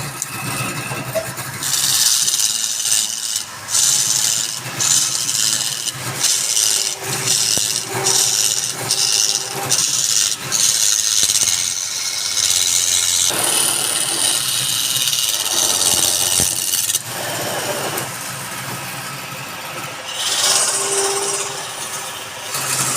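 Wood lathe running with a steady motor hum while a tool cuts or abrades the spinning wood in repeated passes, each pass a stretch of high scraping noise.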